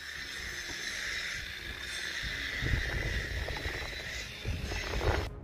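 Wind rumbling on the microphone over a steady outdoor hiss, ending abruptly near the end.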